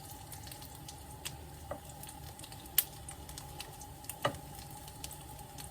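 Plant-based apple and sage sausage halves frying in a pan in a little olive oil: a steady quiet sizzle with a few sharp pops.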